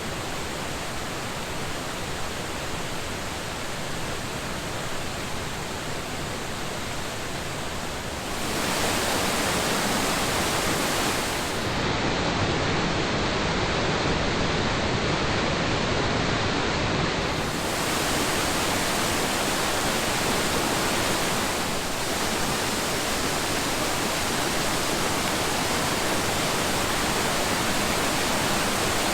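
Waterfall's falling water rushing in a steady, dense hiss. It steps louder about a third of the way in and shifts in tone a few times after that.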